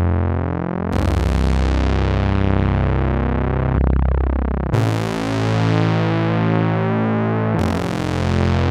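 Waldorf Microwave One wavetable synthesizer playing held low notes, a new note about every three to four seconds. Each new note starts bright, and the tone colour sweeps through the user-made wavetable while it sounds.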